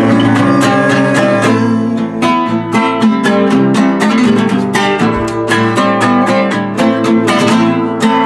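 Acoustic guitar playing an instrumental passage of quick picked notes and strummed chords.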